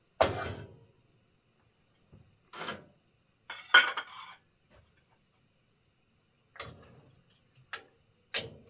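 Dishes, pans and utensils being handled: a string of separate clanks and knocks, the loudest just after the start and around four seconds in, with quiet gaps between.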